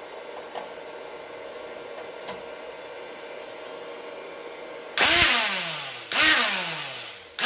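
Counterfeit Bosch-style angle grinder motor switched on in short bursts after a few seconds of faint hum and light clicks: twice near the end it starts with a loud whir that winds down in pitch as it is let go, and a third start comes right at the end. It is running again on its replaced carbon brushes, and the owner puts its extra noise down to a split cooling fan.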